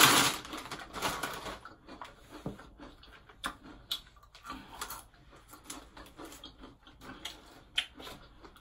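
Someone eating a snack between sentences: irregular small clicks and taps of chewing and lip smacking, with light handling noise.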